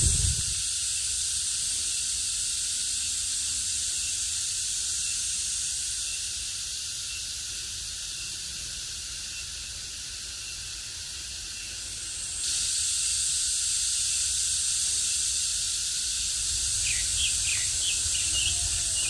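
Steady high-pitched chorus of summer insects, growing louder about 12 seconds in, with a few short bird chirps near the end.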